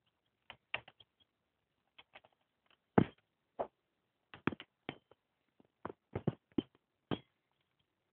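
Young chickens pecking, a dozen or so irregular sharp taps and clicks, the loudest about three seconds in.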